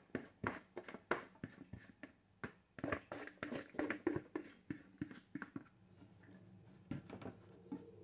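Chopped apple pieces tumbling from a bowl into a metal baking pan, a quick irregular run of soft clicks and knocks. Near the end a forced-air furnace starts up with a steady hum.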